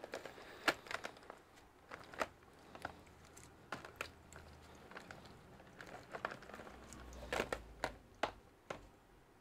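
Tangled cables and small plastic and metal connector tips rustling and clicking as a hand rummages through a box of leads, with irregular light knocks and a brief flurry of clicks near the end.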